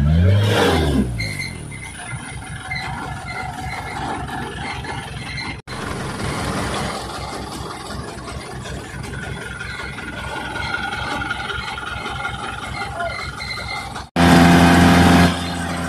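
A light truck's engine revving hard, with its pitch rising and falling, as it struggles in deep mud. It drops to a steady lower running with a faint whine over it, and comes back to a loud rev for a second near the end.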